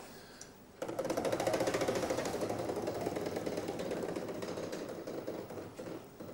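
Game-show prize wheel spinning, its flapper clicking against the metal pegs on the rim. It starts about a second in with a rapid run of clicks, which spread out and fade as the wheel slows.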